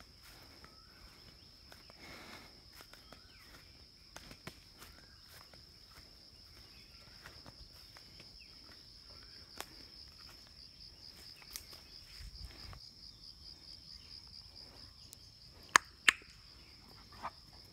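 Steady high-pitched insect trill, turning into a rapid pulsing in the second half, over soft footsteps through grass. Near the end come two sharp, loud clicks in quick succession.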